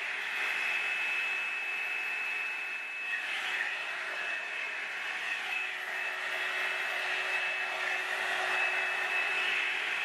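Revlon One Step hot-air brush dryer running steadily: a constant rush of air with a thin, high steady whine from its motor.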